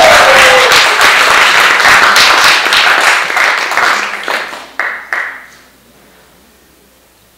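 Audience applauding, with a falling whoop at the very start; the clapping thins out and dies away about five seconds in.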